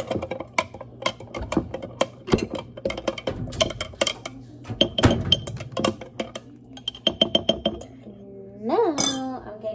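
A metal spoon stirs coffee in a glass mason jar, clinking rapidly and irregularly against the glass, then stops about eight seconds in. Near the end comes a short tone that rises and falls in pitch.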